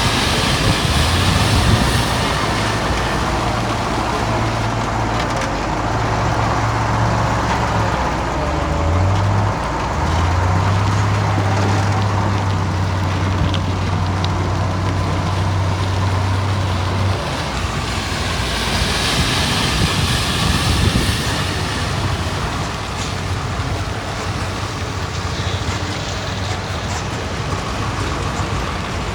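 Heavy earthmoving machinery running: a deep diesel engine note that dips in pitch and recovers about nine seconds in, holds steady, then drops away about seventeen seconds in, leaving the broad noise of machines working.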